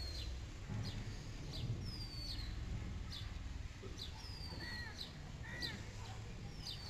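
Birds calling: a clear falling whistle about every two seconds, with short sharp chirps between and two lower arched notes a little past the middle, over a low rumble.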